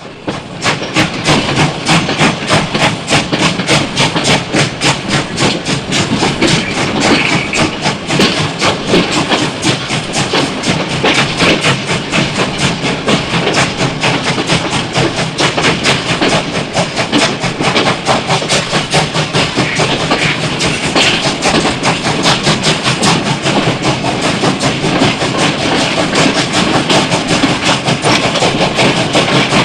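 Steam train running, with a fast, steady rhythmic chugging that fades in over the first second.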